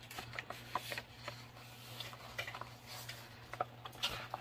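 Faint paper rustling and soft scrapes as hands press flat and handle the pages of a hardcover book, in short scattered bursts, over a steady low hum.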